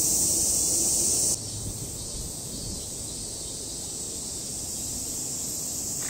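Cicadas buzzing in a steady, high-pitched drone that is loud at first and drops suddenly to a fainter buzz about a second and a half in.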